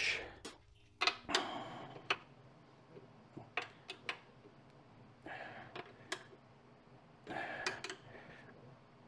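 Hand wrench snugging the bolts on a window regulator assembly: scattered metal clicks and short scrapes in a few brief bursts.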